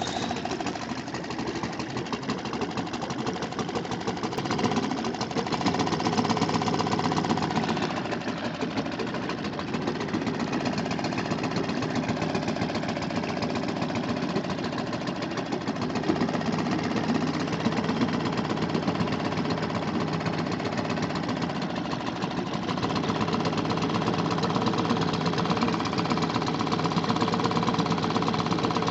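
Small 2.5 hp Suzuki outboard motor running steadily under way, with a fast chugging pulse; it gets a little louder briefly about six seconds in and again near the end, as if the throttle is opened.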